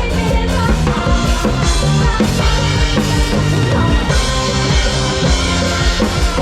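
A live band playing, the drum kit's kick and snare to the fore over bass and other instruments.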